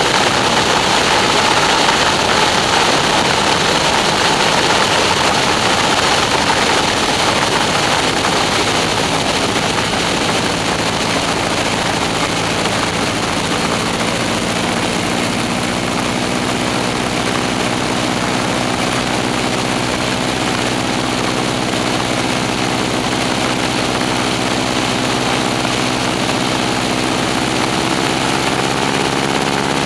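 Stearman biplane's radial engine and propeller running in flight under heavy wind rush on a wingtip-mounted camera. From about ten seconds in the engine's steady hum comes through the wind, its pitch climbing a little near the end.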